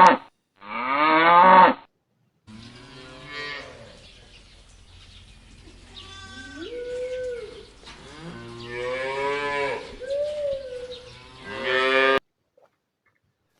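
Bull mooing: two loud calls in the first two seconds, then after a short gap a run of quieter, drawn-out moos with bends in pitch over a low background hum, the last one louder, cutting off abruptly about a second and a half before the end.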